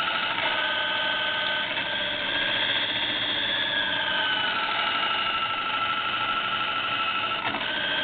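Vectrax drill press motor and spindle running at forward high speed: a steady mechanical whine made of several high tones, one of them dipping slightly in pitch about four seconds in.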